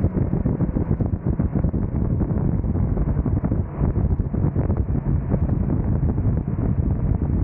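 Heavy wind buffeting the microphone of an Insta360 X2 camera carried on a moving motorcycle, a rough low rumble with motorcycle and road noise beneath it.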